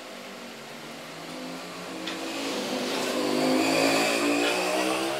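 A motor vehicle engine running with a wavering, rising pitch, growing louder to a peak about four seconds in and then easing off.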